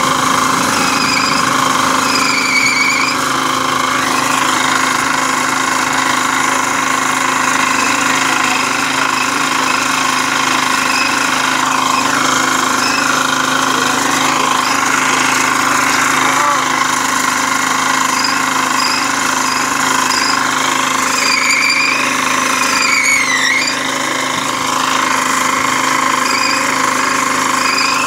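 Petrol-engined rail cutting saw running steadily at full speed, its disc grinding through a steel railway rail.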